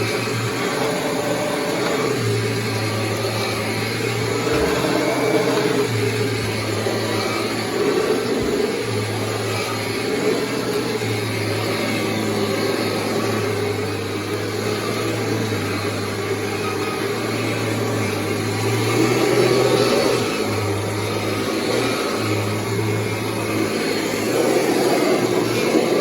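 1998 Kirby G5 upright vacuum cleaner running steadily while vacuuming, a constant motor hum under a broad rushing of air, with small swells in level now and then.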